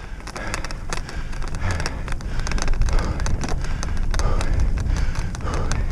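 Dog-drawn rig moving fast over a bumpy grass track: a steady low rumble of wind on the head-mounted microphone and rolling wheels, with frequent small rattles and knocks from the jolting frame.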